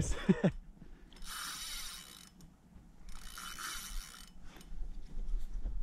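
Spinning fishing reel whirring in two bursts of about a second each, with a fish on the line.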